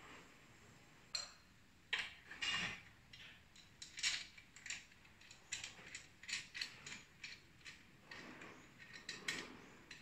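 Irregular clicks and small knocks of an ab exercise machine's handlebar parts being fitted and fastened by hand, starting about a second in, with a few louder clicks around two and four seconds.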